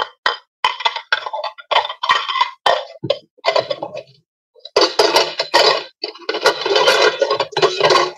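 Dishes and cutlery clinking and clattering in irregular bursts, as of dishes being washed. There is a short pause about four seconds in, then a denser stretch of clatter.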